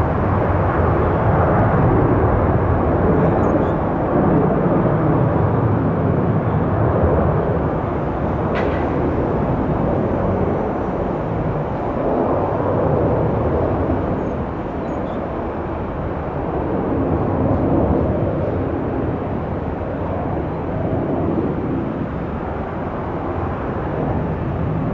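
Two rear-mounted Pratt & Whitney JT8D turbofans of a Delta MD-88 jetliner at takeoff thrust during liftoff and climb-out: a loud roar that wavers and slowly fades as the plane climbs away.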